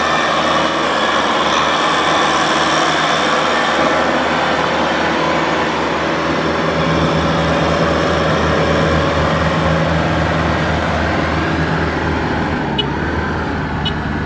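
Kubota M6040SU tractors' diesel engines running steadily under load as one tractor tows another through mud. The engine note deepens and strengthens from about seven seconds in.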